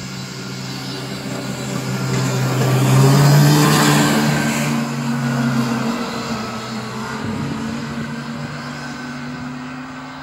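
Snowmobile engine revving as it pulls away and passes, loudest about three to four seconds in, then fading as it drives off into the distance.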